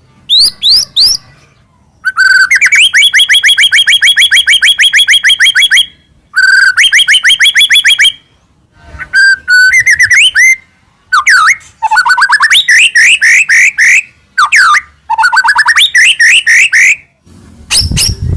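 White-rumped shama (murai batu) singing loudly: phrases of rapid repeated rising whistled notes, about seven a second, in long trills broken by short pauses, with a few varied notes between them.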